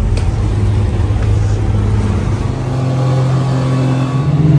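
Speedboat engines running under way, with water rushing past the hull; the engine pitch rises and the sound grows louder in the second half as the boat picks up speed.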